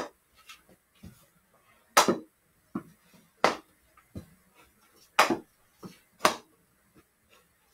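Hockey stick knocking a ball down and striking the floor: a string of sharp, irregularly spaced knocks, the loudest about two, three and a half, five and six seconds in.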